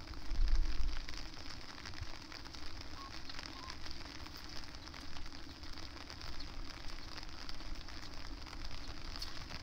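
Steady rain, with many small drops pattering close by. A short gust of wind buffets the microphone about half a second in.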